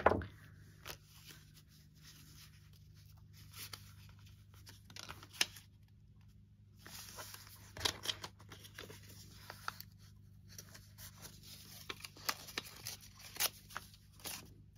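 Paper and craft supplies handled on a work table: soft rustling with scattered sharp clicks and taps, over a faint steady low hum.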